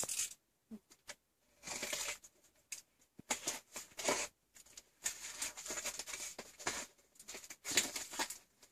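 Cardboard box being opened and handled by hand: flaps rustling and scraping in irregular short bursts with quiet gaps between.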